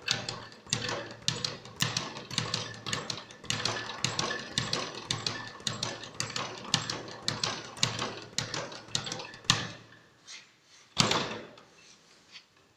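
Speed bag being punched in a fast, even rhythm, the bag rattling against its rebound platform. The rhythm stops about three-quarters of the way through, followed by a few scattered knocks and one louder knock.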